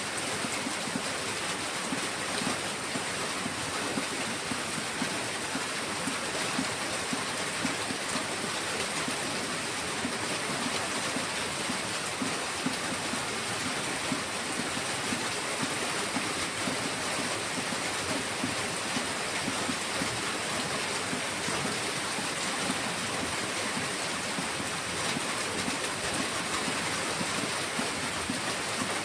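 Heavy rain falling steadily, an even, unbroken hiss with no thunder or other distinct sounds.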